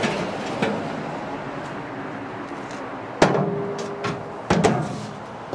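Metal cover of a Hollander beater being lifted off and handled: a clank about three seconds in with a short metallic ring, then a second knock soon after, over steady background noise.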